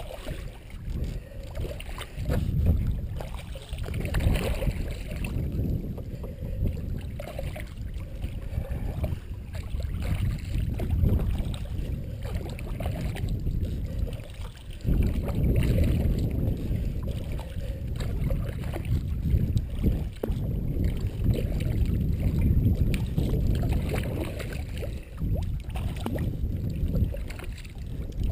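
Kayak paddling: a double-bladed paddle dipping and splashing stroke after stroke as a sea kayak moves through the water, heard as uneven low, rushing noise with short splashy ticks. It gets suddenly louder about halfway through.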